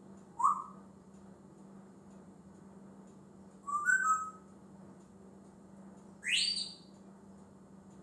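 African grey parrot whistling three times, a few seconds apart: a short rising whistle, then a two-note whistle, then a sharp whistle sweeping steeply upward.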